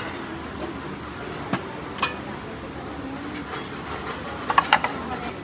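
Stacked wooden serving trays knocking against each other as they are lifted and put back on a shelf: a couple of single clacks, then a louder cluster of three or four near the end.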